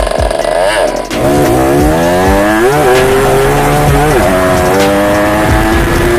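Yamaha Alfa two-stroke motorcycle engine being revved: its pitch drops about a second in, then climbs in two blips that rise and fall, and settles into a steady, higher-pitched run.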